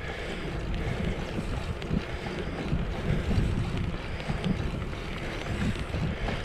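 Wind buffeting the microphone of a GoPro Hero 7 Black action camera on a moving bicycle: a steady low rumble that swells and dips.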